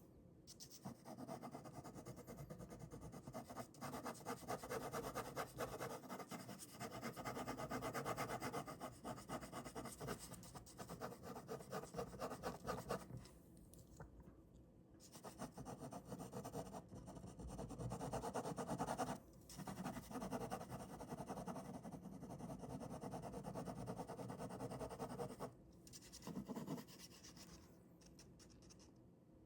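Ballpoint pen drawing on paper: dense, scratchy strokes in long continuous runs, pausing briefly a few times.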